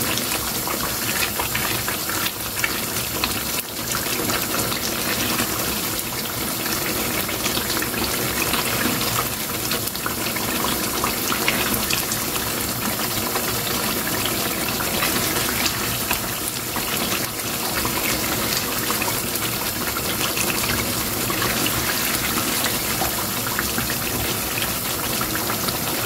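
Chicken curry gravy sizzling and bubbling steadily in a frying pan over a gas flame as it is fried down (bhuna), with occasional scrapes of a spatula.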